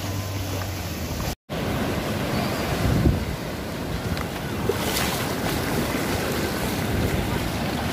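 Surf breaking and washing over a shallow beach, with wind buffeting the microphone. The sound drops out briefly about a second and a half in.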